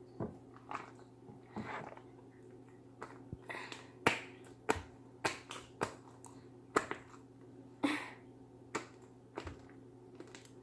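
Sticky, stringy homemade fluffy slime made of glue and shaving cream being worked by hand. It gives irregular sharp wet snaps and pops, about fifteen of them, as it pulls off the fingers. The slime has not set and is still too sticky.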